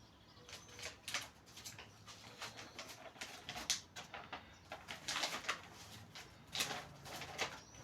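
Paper rustling with light, irregular clicks as a printed instruction manual is handled and its pages turned.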